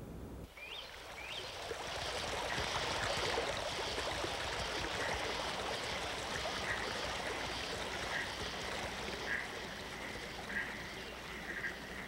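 Stream running over rocks: a steady rush of water that comes in about half a second in. Two short rising chirps are heard just after it starts, then a short chirp repeats about once a second.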